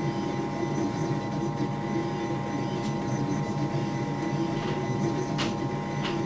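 Up Mini 2 3D printer running a print: stepper motors whirring in quick, shifting tones as the print head moves, over a steady hum, with a few light ticks near the end.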